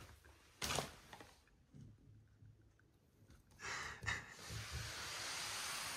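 Quiet breathing and rustling of movement as a baby shifts about on a resting Labrador. There is a short louder breath or rustle about half a second in, and a longer, steady breathy noise through the second half.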